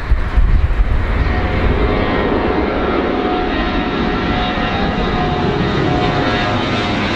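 Jet engines of a four-engine Airbus A340 airliner at takeoff thrust as it climbs out overhead: a steady, loud rushing noise with a faint high whine.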